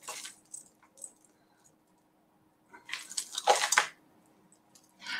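Costume jewellery clinking and jangling as metal and beaded pieces are handled and sorted: a couple of light clicks in the first second, then a louder jangle about three seconds in, and a brief one near the end.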